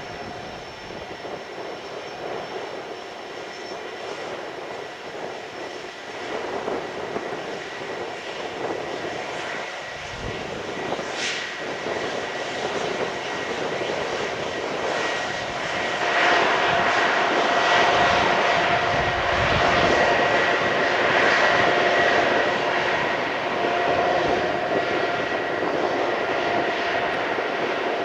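Turbofan engines of an Ilyushin Il-76 freighter running as it taxis: a steady jet rush with a high whine, growing louder and rising sharply a little over halfway through as the aircraft turns.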